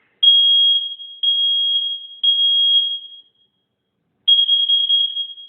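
Dining-room smoke detector alarm sounding in the standard three-beep pattern. Three long, high-pitched beeps come about a second apart, then a pause of about a second, then the next round starts with another beep near the end.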